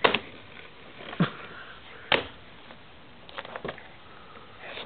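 A baby's hands slapping at a silver laptop's keyboard: five or six separate sharp taps, unevenly spaced.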